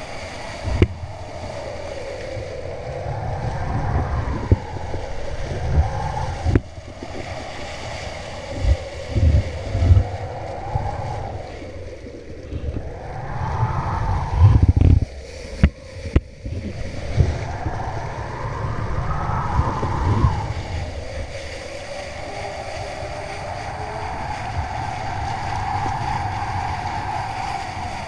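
Wind buffeting an action camera's microphone while a kiteboard planes over choppy water, with rushing water and spray. Low rumbling gusts come and go, with a few sharp knocks along the way.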